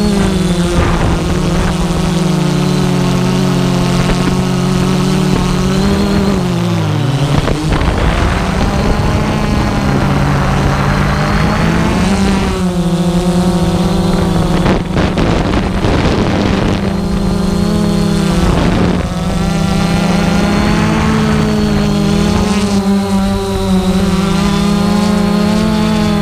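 Multirotor drone's electric motors and propellers buzzing close to the onboard camera, several tones shifting in pitch as it manoeuvres, with a dip about seven seconds in. Wind noise rushes over the microphone for a few seconds past the middle.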